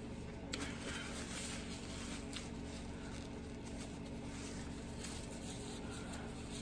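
Soft, close-miked chewing and mouth sounds of someone eating, with a few faint clicks, over a faint steady hum.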